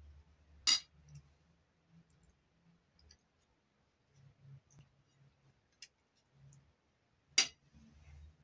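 Spoons and forks clinking against metal platters during a meal. There are scattered light taps and two sharper clinks, one under a second in and one near the end.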